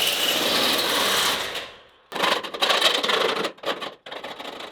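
A handheld power tool runs steadily, then winds down and stops about a second and a half in. Quick irregular clicks and rustling of handling follow.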